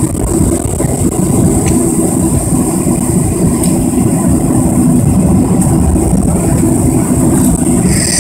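Boeing 737 taxiing, heard from inside the cabin: the jet engines at low power and the rolling of the airliner make a steady low rumble, with a thin steady high whine over it.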